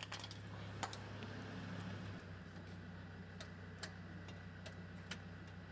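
Light, irregular clicks and ticks, roughly one every half-second to second, over a steady low hum.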